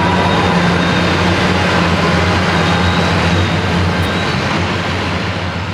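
Antique farm tractor engine running hard under load during a tractor pull, a loud, steady drone that starts to fade over the last two seconds.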